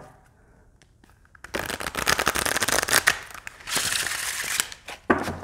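A deck of matte-finish oracle cards being riffle-shuffled: a fast run of card edges flicking for about a second and a half, then a second, shorter run. A soft knock near the end as the deck comes back together.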